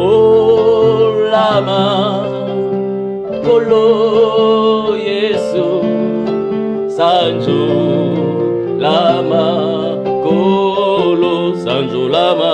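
Worship song: a man singing long, wavering phrases with vibrato over sustained electronic keyboard chords.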